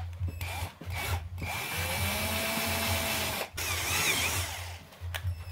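Power drill boring a hole through a blue PVC pipe fitting in trigger pulls. There is a short burst, then a run of about two seconds that stops partway through. The drill starts up again near the end.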